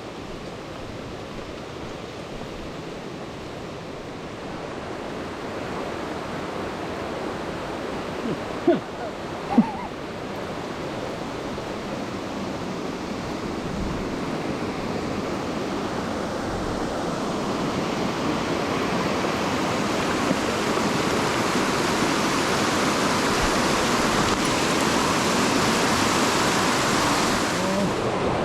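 Mountain stream rushing steadily, growing gradually louder, with two brief sharp sounds about nine seconds in.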